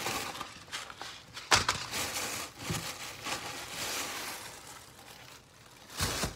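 A reusable shopping bag and the packaging inside it rustling and crinkling as ingredients are pulled out. A sharp knock comes about a second and a half in, and another near the end.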